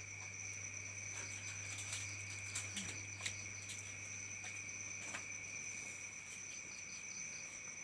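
Night crickets trilling steadily, two unbroken high-pitched drones, over a low steady hum, with a few light clicks near the middle.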